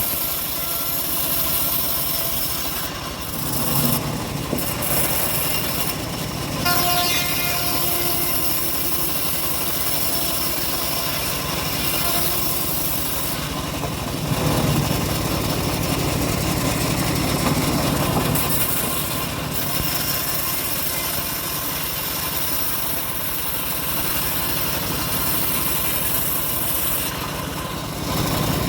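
Homemade bandsaw mill running steadily while sawing an old teak log, a continuous machine rumble and hiss. The high hiss drops away briefly several times.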